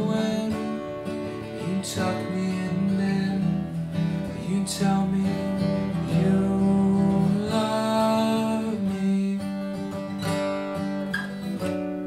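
Acoustic guitar played solo: chords strummed every second or two and left to ring.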